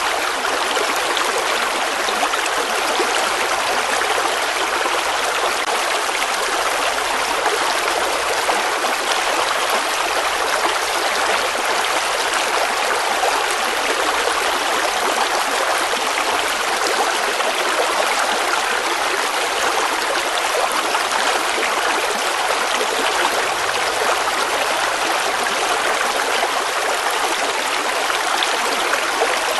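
River water flowing over rocks with a steady rushing and trickling that stays even throughout.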